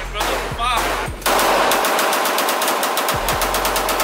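Rapid automatic gunfire: a sustained, even stream of shots at about eight a second, breaking in suddenly about a second in and running on.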